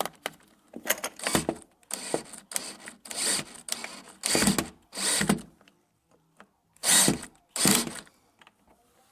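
Power drill driving screws in a string of short bursts of about half a second each, the trigger pulsed again and again, about seven runs in all.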